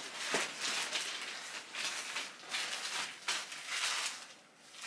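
Plastic clothing packaging rustling and crinkling in a string of short, uneven bursts as it is rummaged through and picked up.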